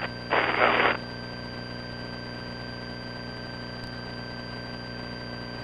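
Steady drone of a Piper Lance's engine in flight, heard through the cockpit headset audio as a fixed hum. About half a second in there is a short burst of radio noise.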